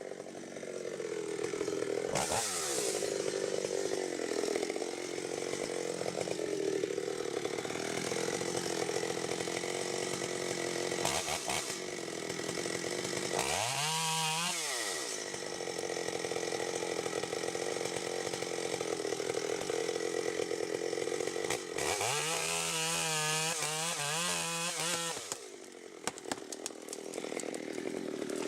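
Chainsaw running at high revs, dropping to a low idle and revving back up three times: about two seconds in, around the middle, and near the end.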